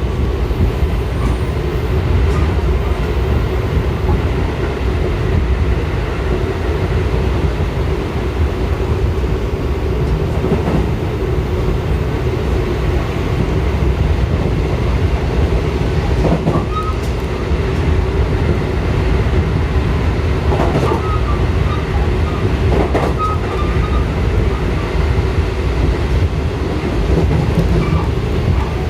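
Train running, heard from inside the passenger car: a steady, loud rumble of wheels on the rails, with a few brief squeaks and clicks in the second half.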